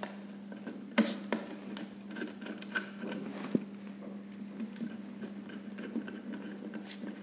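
Light clicks and scrapes of a small screwdriver and wire being worked into the screw terminals of an intercom power supply, with a few sharper ticks over a steady low hum.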